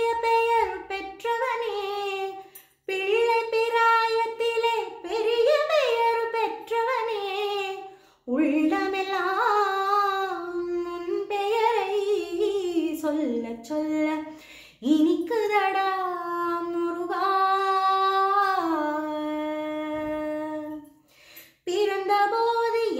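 A woman singing a Tamil devotional song to Muruga solo, holding notes and sliding between them with ornamented turns, in long phrases broken by brief pauses for breath.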